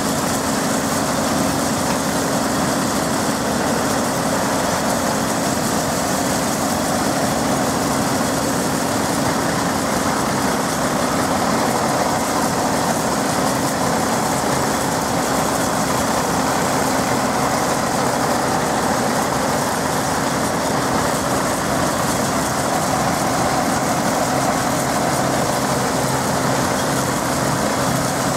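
Caterpillar D5 diesel crawler tractor's engine running steadily as it tows a Holt combine harvester at walking pace.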